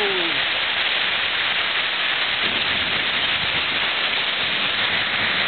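Torrential thunderstorm rain driven by strong wind through trees, a steady dense rush of noise. In the first half-second a falling pitched tone dies away.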